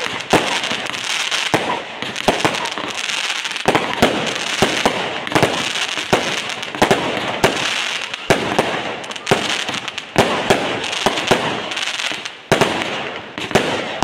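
Fireworks display: shots launching and shells bursting in a fast, irregular series of loud bangs, over a continuous hiss between them.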